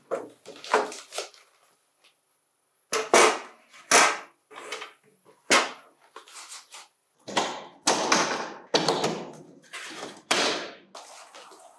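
Sheet-metal sandblasting cabinet panels being handled and set down on a wooden workbench: a string of separate knocks, clanks and scrapes, with a short silent gap about two seconds in.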